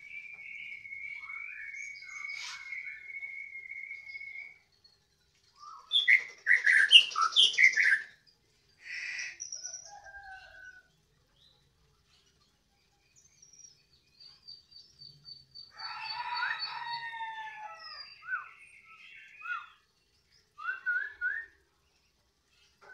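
Caged white-rumped shama (murai batu) singing loud, varied phrases with pauses between them. It opens with a long held whistle, then gives a loud burst of rapid notes mixed with a harsh rasp about six seconds in. Later come a high rapid trill and more short whistled phrases.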